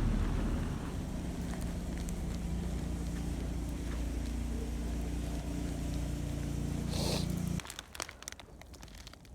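A motor vehicle's engine running as a steady low hum under wind noise, cutting off suddenly about three-quarters of the way through. After it, quieter scattered crackling clicks, like boots crunching in snow.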